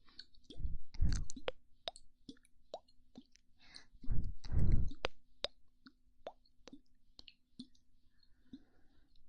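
ASMR mouth sounds close to the microphone: a string of wet lip pops and tongue clicks. Twice, about a second in and again around four seconds in, a longer breath is blown into the microphone.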